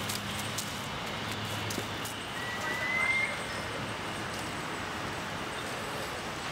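Steady outdoor background noise, with a brief thin rising whistle about two and a half seconds in.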